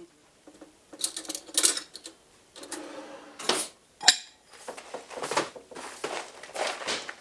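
Kitchen handling noises: dishes and utensils clattering and scraping in a string of short bursts, with one sharp click about four seconds in.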